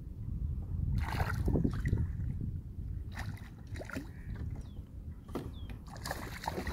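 A hooked peacock bass splashing and thrashing at the surface beside a small boat, with irregular bursts of splashing and water slapping, over a steady low rumble.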